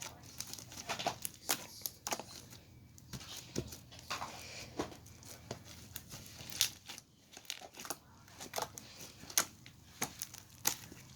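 Irregular crinkling and crackling of something being handled by hand: a stream of sharp crackles and clicks at uneven intervals.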